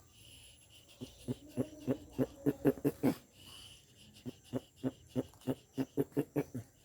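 Male tortoise (jabuti) giving its mating calls while mounting a female: short, pitched grunts at about four a second, in two runs of a couple of seconds each with a short pause between.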